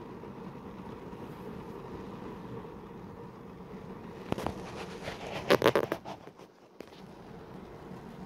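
Steady hum and noise inside a running car. A cluster of sharp clicks and rattles comes between about four and six seconds in.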